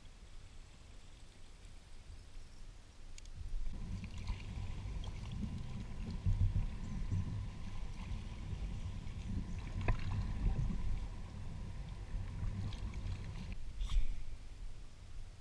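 Kayak moving through dense lily pads: water swishing and the hull brushing through the pads, with a few sharp clicks. It starts about four seconds in and stops shortly before the end.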